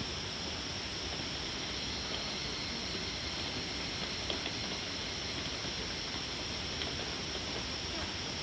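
Steady rain falling in woodland, an even hiss with a few faint drip ticks scattered through it.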